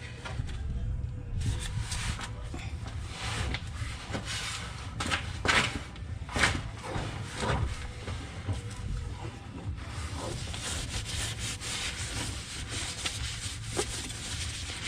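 Rubbing, rustling and light knocking handling sounds, in separate strokes at first and then a denser rustle, over a steady low rumble.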